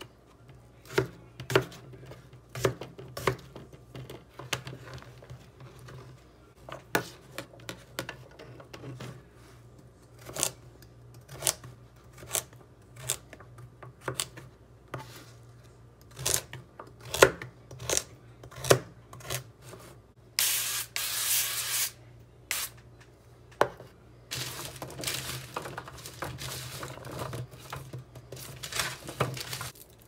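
Chef's knife chopping potatoes and carrots on a plastic cutting board: sharp taps of the blade striking the board at an uneven pace. About two-thirds through comes a short hiss, then a longer stretch of rustling and scraping mixed with more taps.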